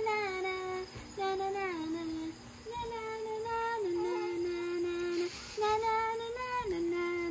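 A high voice humming a slow, wordless tune: a string of held notes that step up and down, some sliding briefly between pitches, with short breaks between phrases.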